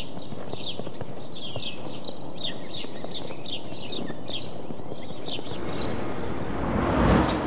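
Sound-designed nature ambience: small birds chirping in short, high, falling notes, a few a second, over a steady noisy bed. About six seconds in, a whoosh swells, peaks near seven seconds and falls away as a transition.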